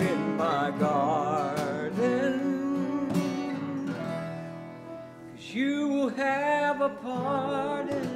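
Live song with acoustic guitars and piano, and a singer's voice holding long wavering notes in two phrases.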